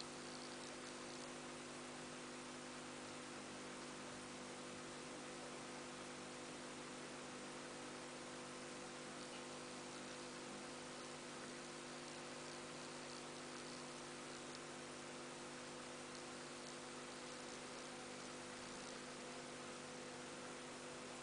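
Steady faint electrical hum of several low tones over an even hiss, unchanging throughout.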